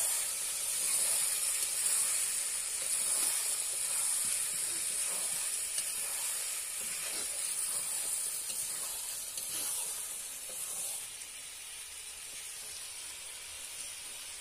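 Meat and fried potatoes sizzling in spiced oil in an iron kadai while a metal spatula stirs and scrapes through them: the kosha stage of a meat curry, frying the masala down. The sizzle drops a little quieter about two-thirds of the way through.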